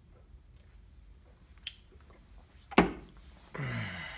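An aluminium beer can set down on a workbench with one sharp knock nearly three seconds in, followed near the end by a short, low voice sound falling in pitch.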